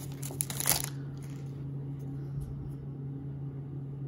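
Foil wrapper of a 2018 Topps Update baseball card pack crinkling as it is torn open, stopping about a second in. A steady low hum runs underneath throughout.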